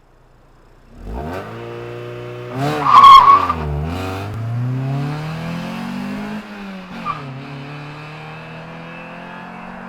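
Honda Civic four-cylinder engine through an aftermarket exhaust, coming in about a second in and revving hard to a loud peak, falling back, then pulling up steadily in pitch before dropping off with a quick blip and settling to a steady run.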